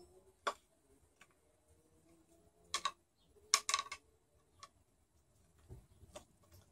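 Scattered sharp clicks and clacks of hands handling wiring and small parts on an outboard motor, loudest in a quick cluster about three and a half seconds in.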